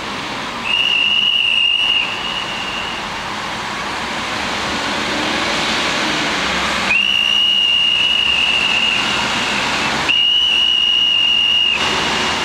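Three long, steady, high-pitched whistle blasts, the first about a second in, the next two near the end, blown by a man on the street, over constant traffic noise.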